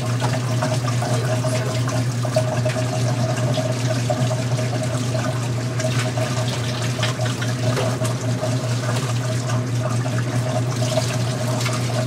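Tap water running steadily into a kitchen sink while hands wash under it, with small splashes and clicks, over a steady low hum.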